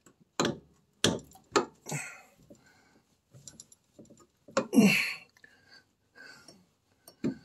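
Scattered sharp clicks and knocks of metal parts as a new rear shock absorber on a Triumph Spitfire is handled and worked toward its mount, with a short rustle about five seconds in.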